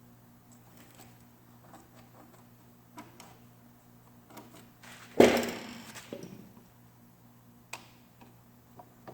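Scattered light clicks and one loud knock about five seconds in that rings off briefly, over a steady low hum.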